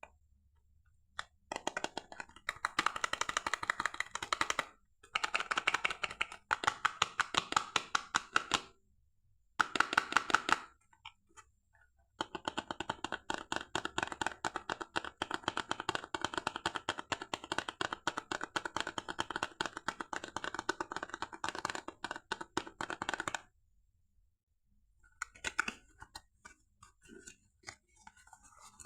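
Rapid close-up crackling and clicking from hands handling a bar of soap and its packaging, in several long runs broken by short pauses, the longest about eleven seconds, with fainter scattered clicks near the end.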